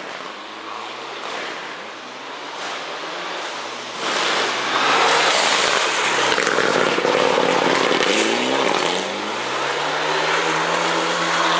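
Mitsubishi Lancer Evolution rally car on a gravel stage, its turbocharged four-cylinder engine revving hard through the gears. It is heard approaching at first, then turns abruptly much louder about four seconds in as it passes close by. The engine pitch climbs several times near the end as the car accelerates away.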